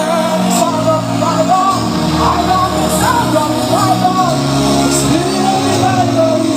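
Worship music: a voice singing over long held chords.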